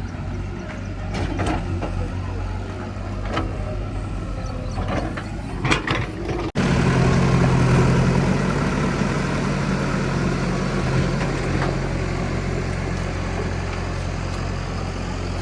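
Diesel engine of heavy earthmoving machinery running steadily, with scattered clanks in the first few seconds. About six and a half seconds in it cuts abruptly to a louder, steadier engine.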